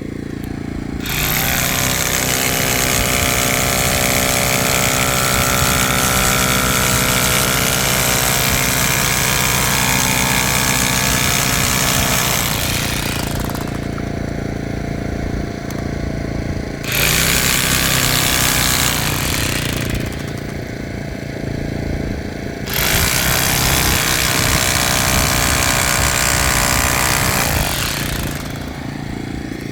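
Jackhammer breaking very hard, compacted desert soil in three long runs, the first about twelve seconds, then two shorter ones. A steady engine drone carries on under the hammering and through the pauses.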